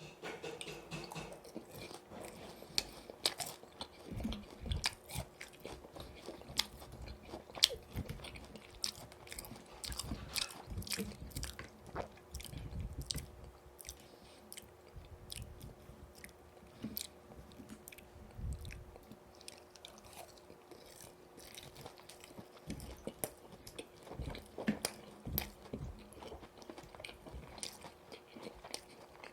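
Close-up biting, chewing and crunching of boneless yuringi fried chicken, with frequent sharp crackles from the crisp coating between softer chews.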